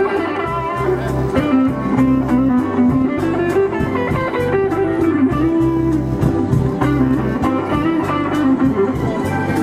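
Background music: a blues-style electric guitar melody with bending, held notes over a steady, pulsing bass line.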